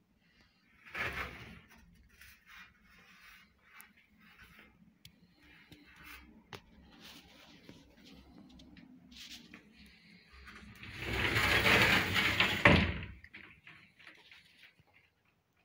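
Wooden wardrobe being handled: faint knocks and rustles, a short noise about a second in, and a louder door-sliding or closing sound lasting about two seconds near the end.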